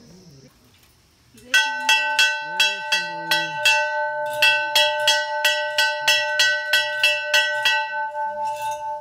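Large hanging brass temple bell rung by hand, its clapper striking about three times a second from about a second and a half in, with a short pause near the middle. The strikes stop near the end while the bell's tone rings on.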